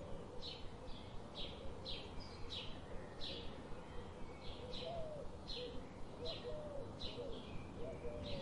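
Birds chirping: short, high, downward-sliding chirps repeating about one and a half times a second, with fainter, lower warbling calls behind them over a steady low background noise.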